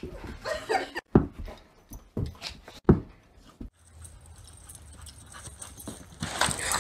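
A dog's brief noises during rough play among several sharp knocks and thumps, then a steady low rumble that grows louder near the end.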